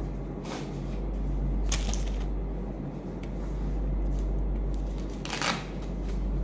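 A cloth item with a strap being handled: three short rustles over a steady low hum.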